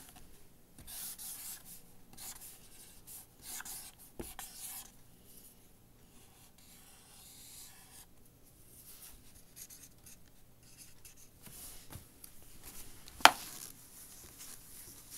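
Handwriting: a writing tool scratching on a surface in short strokes, most busily in the first five seconds, then fainter. A sharp click sounds once about 13 seconds in.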